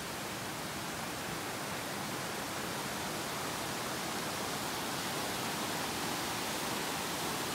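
Stream water rushing over rocky cascades as one steady, even rush, growing slightly louder near the end.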